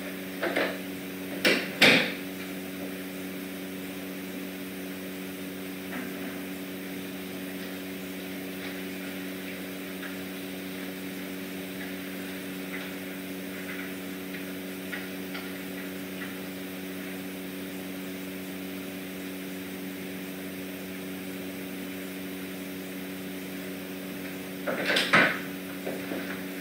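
Steady low electrical hum of several even tones, with two sharp knocks about two seconds in, faint scattered taps in the middle, and a louder clatter near the end.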